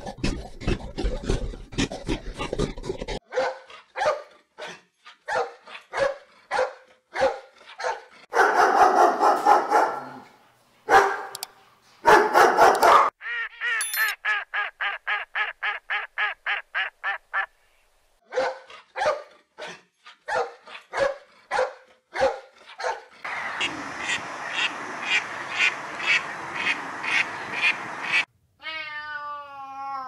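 A succession of different animal calls cut one after another. Midway a domestic duck quacks in a quick, even run of about four quacks a second, and near the end a cat meows with falling-pitched cries.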